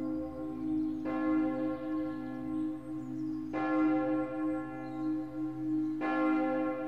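A large bell struck slowly, three strokes about two and a half seconds apart, each ringing on into the next over a steady low hum.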